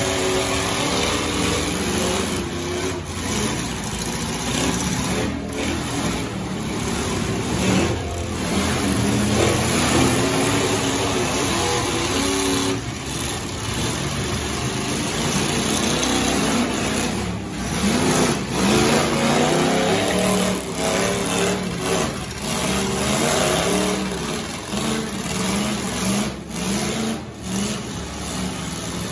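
Demolition-derby pickup truck engines revving up and easing off over and over as the trucks ram one another, with a sharp crash every so often.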